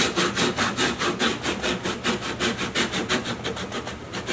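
Hand back saw ripping down a tenon cheek in a wooden leg, with quick, even back-and-forth strokes that grow fainter near the end.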